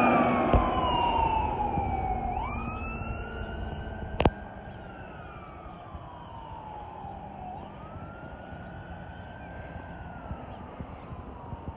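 Ambulance siren wailing as the ambulance drives away. The pitch falls slowly over a few seconds and then jumps quickly back up, and the siren fades over the first few seconds to a faint, steady wail. A single sharp click sounds about four seconds in.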